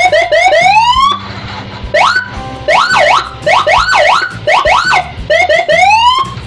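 Custom electronic escort siren cycling its tones: a quick run of short rising whoops ending in a longer rise, a pause of about a second, then fast up-and-down yelp sweeps at about two a second, and rising whoops again near the end.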